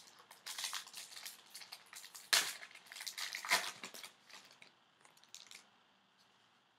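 Foil wrapper of a hockey card pack being torn open and crinkled in the hands, a run of crackles loudest about two and a half seconds in, dying down after about four and a half seconds.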